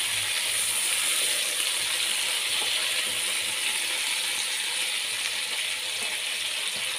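Oil sizzling steadily under a whole chicken searing with tomatoes and spices in an aluminium pot, over lowered heat, with small scrapes and clicks from a silicone spatula stirring.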